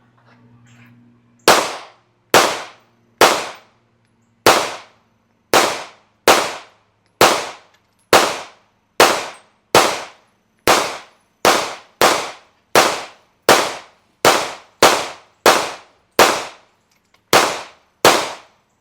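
About twenty gunshots fired one at a time at a steady pace of roughly one a second, starting about a second and a half in. Each is a sharp crack that dies away quickly.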